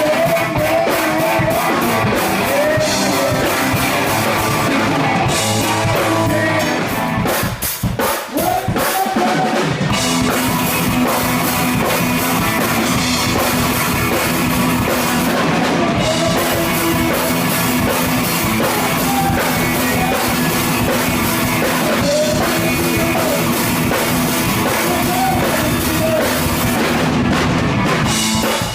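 Live rock band playing with a drum kit and singing. The band thins out briefly about eight seconds in, then comes back in full.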